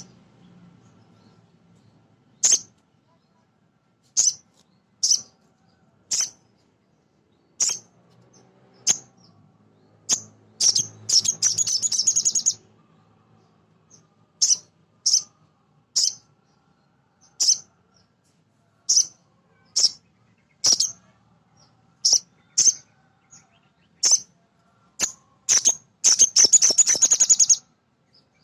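Male little spiderhunter (sogon, sogok ontong) calling: single sharp, high-pitched chips about a second apart, broken twice by rapid chattering runs of notes, once around the middle and once near the end.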